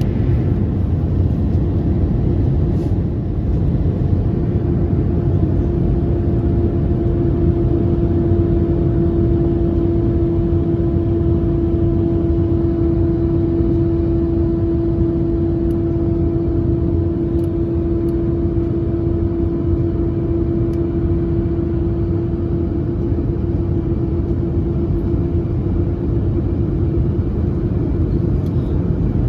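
Steady cabin noise of an Airbus A319 in descent, with a steady droning tone over it that fades in about four seconds in and fades out near the end. The uploader calls this tone an odd sound.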